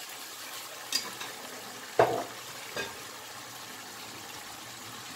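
Ground-beef picadillo in tomato sauce sizzling steadily in a frying pan, just after dry cooking wine has been poured in. A few short knocks break in, about one, two and three seconds in, the one at two seconds the loudest.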